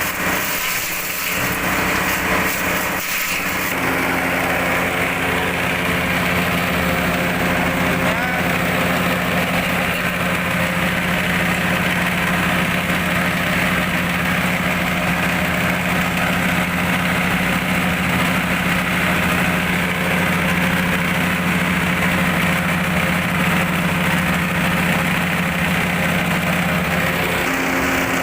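Engine-driven forage chopper running steadily, its pitch settling into an even note about four seconds in after an uneven start.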